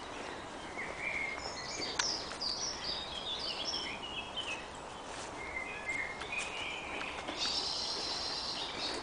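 Woodland birds singing, a series of quick high chirping phrases followed by a longer high trill near the end, over a low outdoor hiss. Faint footsteps on a dirt path.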